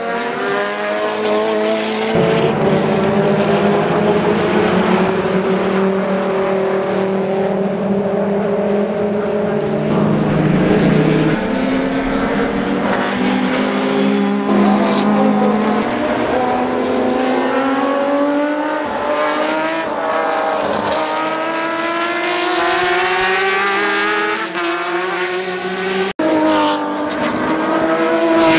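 Several racing car engines at high revs, one after another, passing on a circuit. Their pitch rises through the gears and drops back on shifts and downshifts. The sound breaks off sharply about 26 seconds in, and another engine revs up.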